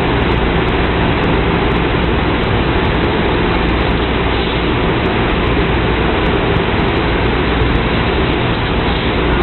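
5-axis CO2 laser cutting head cutting a pressed sheet-metal panel: a steady rushing hiss with a low hum underneath.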